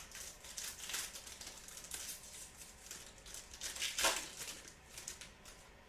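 Trading cards and their foil pack wrappers being handled: a run of faint, crisp rustling and crinkling, with a louder rustle about four seconds in.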